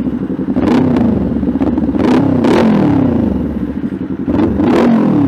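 Kawasaki Ninja 400's parallel-twin engine revved several times through an SC Project aftermarket exhaust, the pitch rising and falling with each throttle blip between spells of idle.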